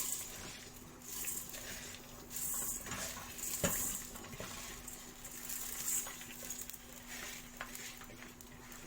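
Washed rice stirred in a pot of hot ghee and oil, the spoon scraping and knocking against the pot now and then, with short patches of hiss.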